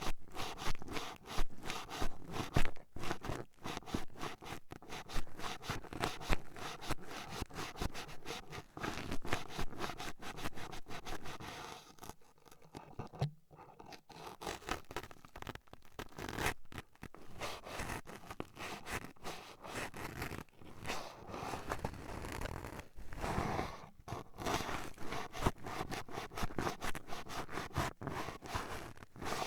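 Toothpicks poking and scratching right against a binaural microphone's ear: rapid, dense crackly scratching, easing off briefly a little before halfway.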